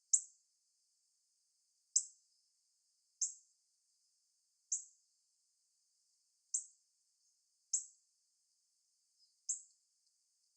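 Female northern cardinal giving sharp, high chip calls: seven short single notes spaced about one to two seconds apart.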